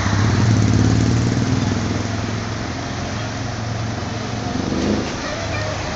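Road traffic, with a nearby vehicle engine running as a low steady hum over general road noise. The hum is loudest in the first couple of seconds and eases after.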